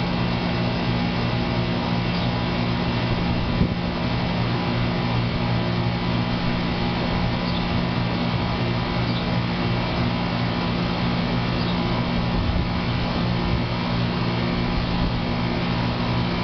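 Guardian central air conditioner running with a steady mechanical hum, with a brief knock about three and a half seconds in.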